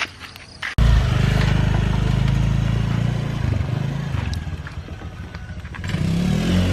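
Small motorbike engine running under load, starting abruptly about a second in; its pitch sags in the middle and climbs again near the end.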